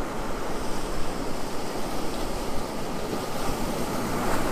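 Ocean surf washing onto a beach: a steady, surging rush of breaking waves.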